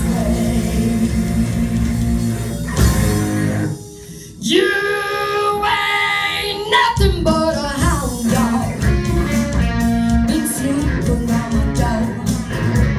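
Rock and roll band playing, with guitars, bass and a singing voice. The music drops away briefly about four seconds in, then comes back in full.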